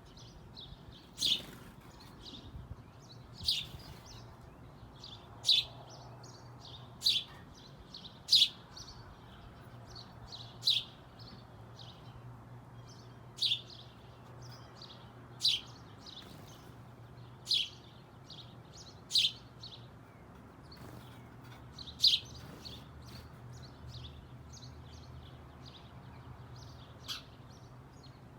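Birds chirping: single short, sharp, high-pitched chirps about every two seconds, with softer chirps between them.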